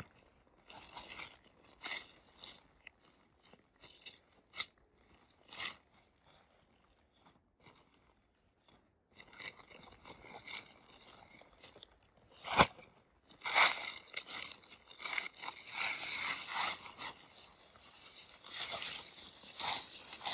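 Nylon tent fabric and camping gear being handled: irregular rustling and crunching, sparse at first, then denser and longer near the end as the rainfly is lifted. A single sharp click about twelve seconds in is the loudest sound.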